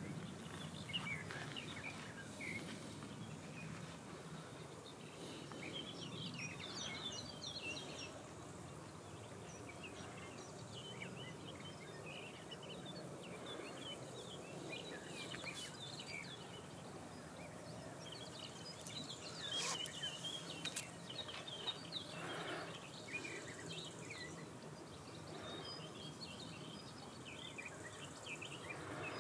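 Small birds chirping in short, repeated calls over a steady low background noise.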